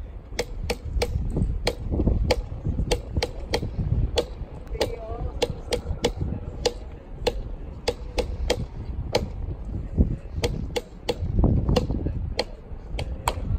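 Baseball crowd cheering in the stands: sharp rhythmic claps, about three a second, over a low rumble of voices.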